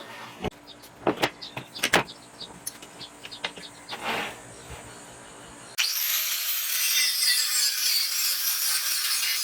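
Scattered clicks and knocks of tools and parts being handled, then, about six seconds in, a steady grinding hiss starts abruptly, typical of an abrasive belt or grinder working metal.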